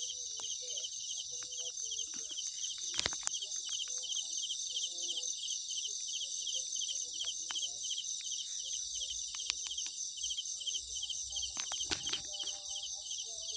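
Steady high-pitched chorus of night insects, with a fast, even pulsing trill of about four to five pulses a second. Fainter scattered chirps sit lower down.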